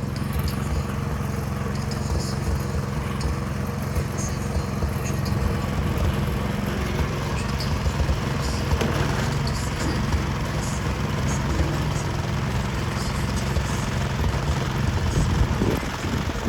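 Snowblower engine running steadily, with scattered small clicks and rattles over the engine note.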